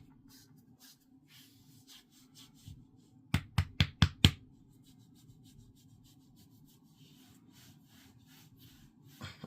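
Hands handling something, with faint rubbing, then a quick run of about six sharp taps about three and a half seconds in.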